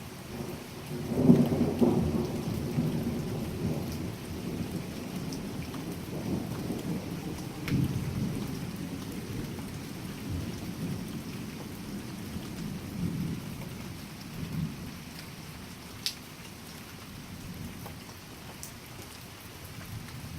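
A long roll of thunder that builds about a second in and rumbles on, fading gradually over the next dozen seconds, with steady rain falling throughout.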